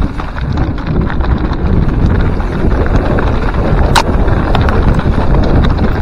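Wind buffeting the microphone of a mountain bike's onboard camera as it rolls down a rocky trail, with tyres crunching over loose stones and the bike clattering. One sharp click about four seconds in.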